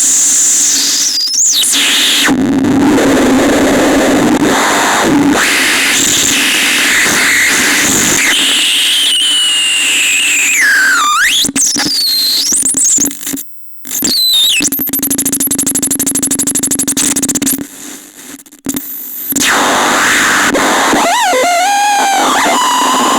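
Catastrophone electronic noise instrument playing harsh static with squealing pitch glides sweeping up and down. It cuts out briefly about halfway through, then gives a fast buzzing pulse and warbling, wavering tones near the end.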